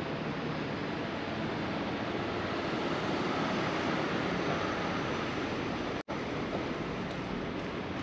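Steady outdoor roar of city street traffic with wind on the microphone, even throughout and with no impacts; the sound drops out for an instant about six seconds in.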